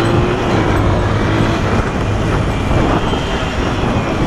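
Honda CG 125's single-cylinder four-stroke engine running steadily while the motorcycle is ridden, heard with wind noise on the helmet or handlebar camera microphone.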